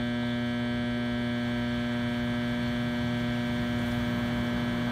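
Steady electrical-sounding hum with many evenly spaced overtones, holding one pitch and one level throughout; a generator that the uploader says was broken and being fixed.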